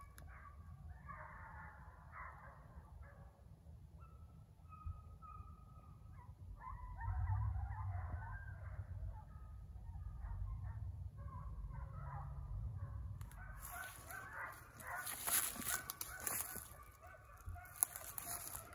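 Distant animal calls, several short, pitched calls overlapping one another, over a low rumble. About thirteen seconds in, a rough rustling noise starts up over them.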